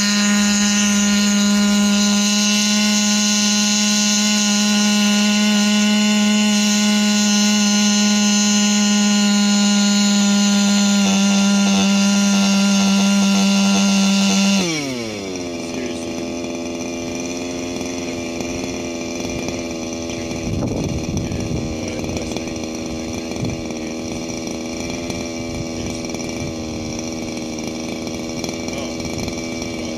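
Combustion-engine hybrid quadcopter running with a loud, steady engine-and-propeller drone. About halfway through it spools down: the pitch falls quickly, and the engine keeps running at a lower, quieter idle.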